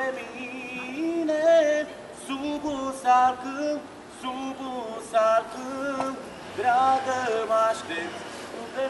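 A woman singing a slow melody, with held, slightly wavering notes broken into phrases.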